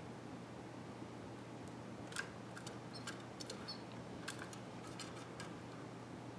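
Canaries in a wire cage making scattered light clicks and ticks as they peck at plastic seed cups and move about, about ten from some two seconds in, over a steady low hum.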